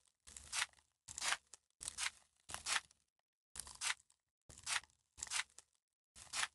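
Slime being squeezed and pressed by hand: about nine short, noisy squishes in a steady rhythm, with dead silence between them.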